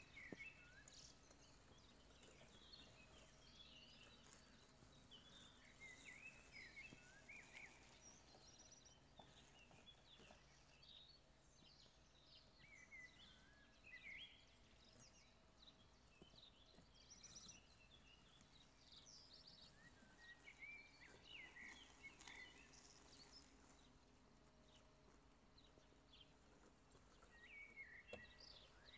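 Near silence: faint birds chirping on and off over a faint, steady low hum.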